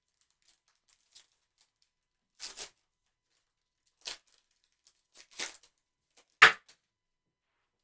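A foil trading-card pack being torn open by hand: a few short rips and crinkles, the last and loudest near the end.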